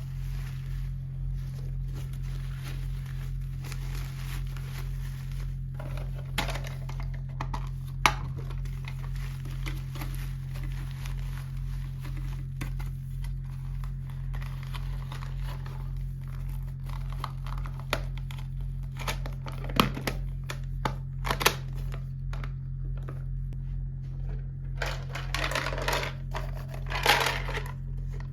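Plastic packaging being handled and opened: scattered crinkles and small sharp clicks, busiest near the end, over a steady low hum.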